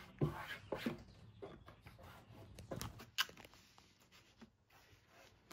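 Faint rustling and scuffing of black fabric being stretched and tucked by hand over a go-kart seat shell, with a few light ticks. The sounds fall silent about three and a half seconds in.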